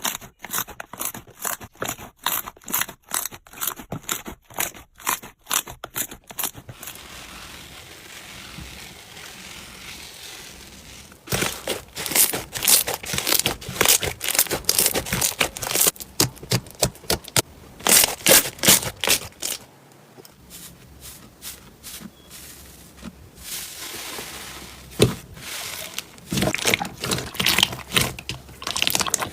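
Slime being worked by hands close to the microphone, making crisp crackling and clicking: a regular run of about two to three clicks a second at first, then a quieter stretch, then dense, louder crackling twice more.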